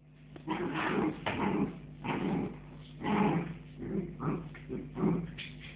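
West Highland white terrier making a string of short growling and whining noises, one every half second or so, while it mouths a cat in play.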